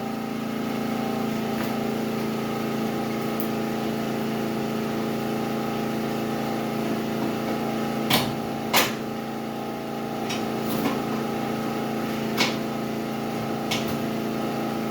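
Portable generator engine running steadily, a constant pitched hum. Over it come a few sharp knocks and clatters of objects being handled, the loudest two about eight seconds in, less than a second apart.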